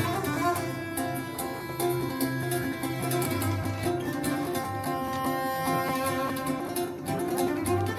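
Recorded acoustic string music, plucked guitar- or mandolin-like notes over bowed strings and a moving bass line, played back through hi-fi loudspeakers in a demo room.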